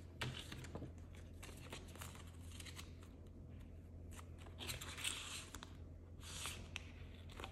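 Soft crinkling and rustling of polymer banknotes being handled and slid into a plastic binder envelope, with scattered light clicks and two louder spells of rustle around five and six seconds in.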